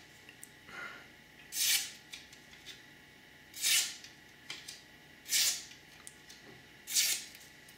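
Knife edge fresh off a 16-micron CBN leather strop push-cutting across the grain of a strip of printed paper: four short, crisp slicing sounds roughly one and a half to two seconds apart, with a fainter one about a second in.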